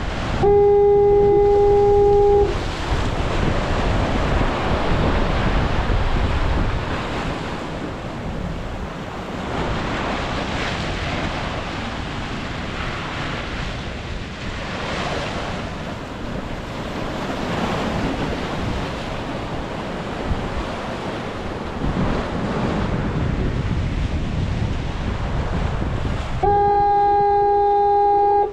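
Surf washing against jetty rocks, with wind buffeting the microphone. A foghorn sounds a steady two-second blast near the start, and the same blast comes again about 26 seconds later near the end.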